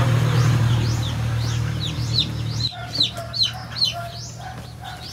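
Chicks peeping: many short, falling high peeps, a few a second, standing out more clearly from about halfway through, with a few low clucks from a hen. A steady rushing noise with a low hum covers the first half and then drops away.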